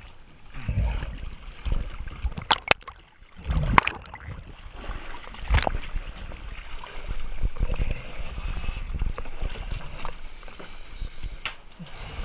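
Sea water splashing and sloshing around a camera held at the surface against a boat's hull, with several sharp knocks as a diver grabs the boat's ladder and climbs out.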